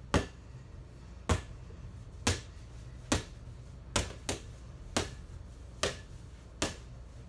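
Basketball dribbled on a hard indoor floor: about nine sharp bounces at roughly one a second, with two close together about four seconds in.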